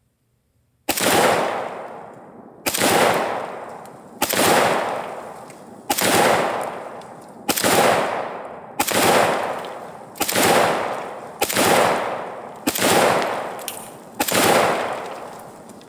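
AK-47 rifle firing 7.62×39 rounds in slow, aimed semi-automatic fire: ten shots about a second and a half apart, each trailing off in a long echo.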